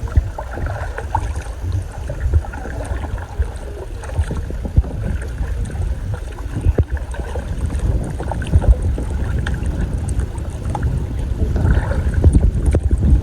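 Kayak paddling through calm water, with irregular paddle splashes and knocks over a low wind rumble on the microphone.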